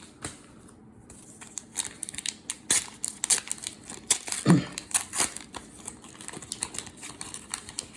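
Foil trading-card pack wrapper being torn open and crumpled in the hands: a dense run of sharp, irregular crackles.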